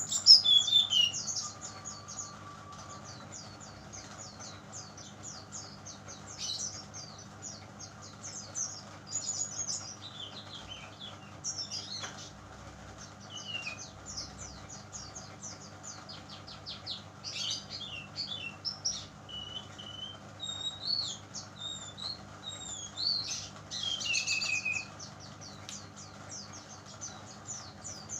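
Young brown-chested jungle flycatcher singing: rapid series of high chirps and twittering phrases with short pauses between them, the loudest burst right at the start, an untamed young bird already in full song. A faint steady hum lies underneath.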